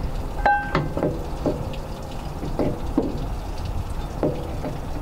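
Irregular metallic clinks and knocks, about eight, a few with a short ring, the loudest about half a second in: bolts and tools being worked against a fabricated steel engine-mount bracket whose bolt holes are too tight. A steady low rumble underneath.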